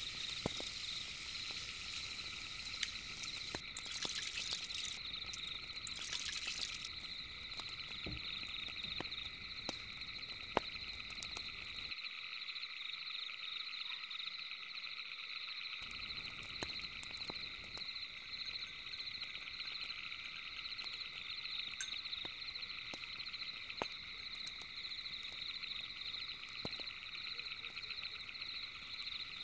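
Night-time chorus of calling animals: steady, rapidly pulsing trills in several high pitches, with scattered small clicks.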